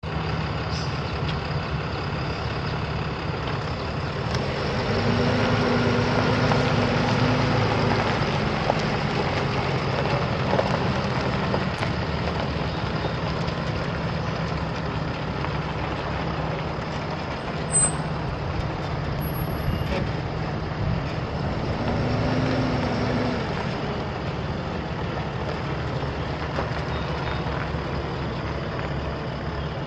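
A Ram 5500 truck's 6.7-litre Cummins inline-six diesel running steadily at idle, its engine speed rising and falling back twice, about five and about twenty-one seconds in.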